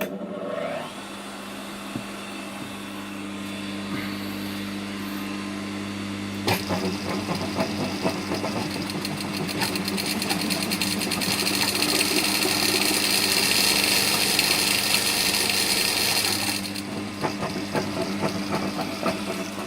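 Pfaff industrial sewing machine: its motor spins up and hums steadily. About six seconds in the machine starts stitching with a rapid, even clatter that runs for about ten seconds and then stops, while the motor keeps humming.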